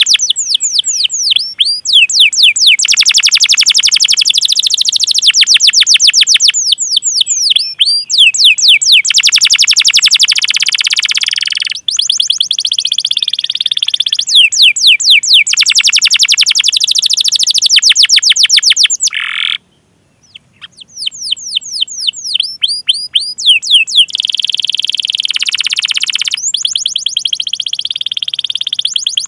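Domestic canary singing loudly and continuously: fast series of sharp, downward-sweeping 'cuit cuit' whistle notes, several per second, alternating with dense rolled trills. The song cuts out for about a second roughly two-thirds of the way through, then resumes.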